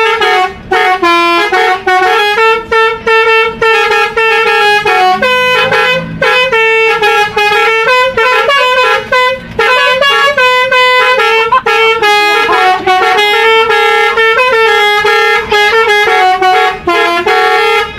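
Loud bus 'telolet' musical air horn (basuri) playing a tune: a quick run of short horn notes stepping up and down in pitch, one after another with only brief breaks.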